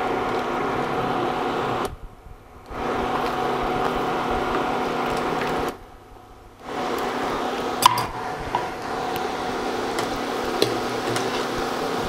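Small squares of cheeseling dough frying in hot oil, a steady sizzle over the hum of the induction cooktop. The sound cuts out twice for under a second, and a few light metal clicks come about 8 s in, as the wire strainer touches the pan.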